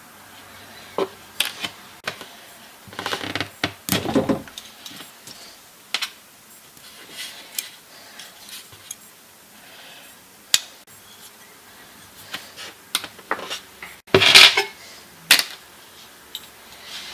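Irregular clicks and clatter of small hard objects being handled and set down, with a cluster of clicks about 3 to 4 seconds in and the loudest rattle about 14 seconds in.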